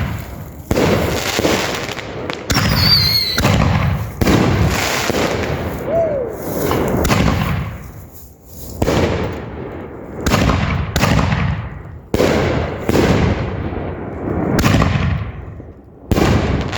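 Leftover fireworks cakes and canisters that failed to fire on cue going off as they burn: a dozen or more bangs in quick, irregular succession, each followed by a long fading echo. A short high whistle sounds about three seconds in.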